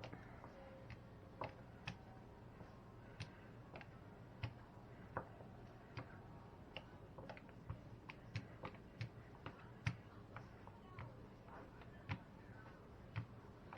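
Faint, irregular light taps and clicks of hands working biscuit dough on a kitchen counter, patting it flat and rolling it out, over a low steady room hum.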